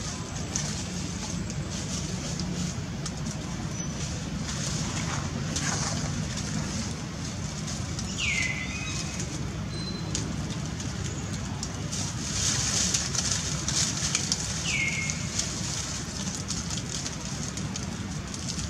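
Dry leaf litter rustling as macaques shift about on the forest floor, over a steady low hum and a high hiss. Twice, several seconds apart, a short high call slides quickly downward.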